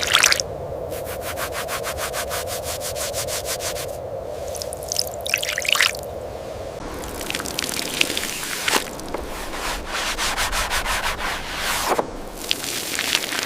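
Scrubbing on a hard, dirt-caked surface: a few seconds of fast, even back-and-forth strokes, then slower, irregular rubbing and scraping strokes.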